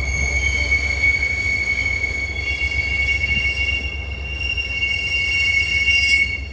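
Freight car steel wheels squealing against the rails: several steady high-pitched tones over a low rumble. Another tone joins about two and a half seconds in, and the squeal stops shortly before the end.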